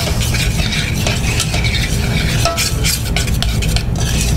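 A utensil stirring raspberry coulis in a stainless steel saucepan on a gas burner, with repeated short scrapes and light clinks against the pan and a faint sizzle, over a steady low rumble. The coulis, set too thick as it cooled, is being reheated with a little water to melt it back.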